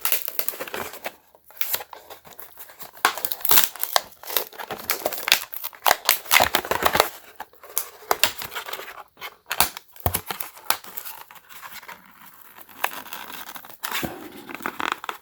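Product packaging being opened by hand: a long run of irregular crinkling, tearing and clicking of plastic and card.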